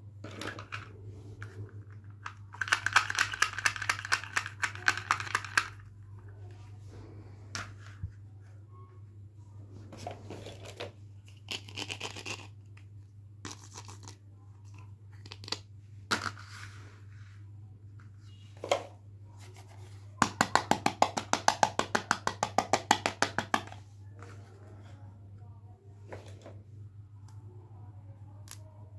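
Plastic toy packaging being torn and peeled open, heard as two long crackling tears, a few seconds in and again about two-thirds through. Light clicks and taps of small plastic toy pieces fall in between, over a steady low hum.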